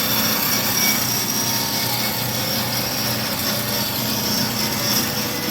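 Cosen C-420NC horizontal dual-column NC bandsaw running: a steady mechanical drone with a thin high whine held on top, unchanging throughout.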